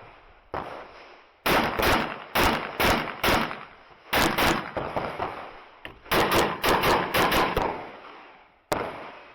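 Handgun shots fired in quick strings during an IPSC stage: about five fast shots, one or two more after a brief pause, a rapid run of about seven, then a single last shot.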